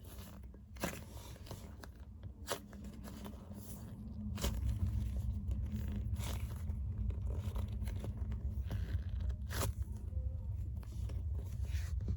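Squishy toys squeezed and kneaded by hand close to the microphone: scattered crackling and crunching, over a low handling rumble that grows louder about four seconds in.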